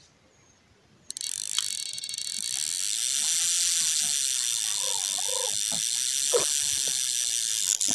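Carp run: an electronic bite alarm sounds continuously while line is pulled off the reel's free-spool ratchet in a fast, steady buzz. It starts suddenly about a second in, and is the sign of a carp taking the bait.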